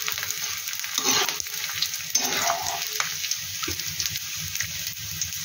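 Gond (edible gum) crackling and sizzling as it fries and puffs in hot ghee in a steel kadhai on a low flame. A spatula stirs and scrapes through it a few times.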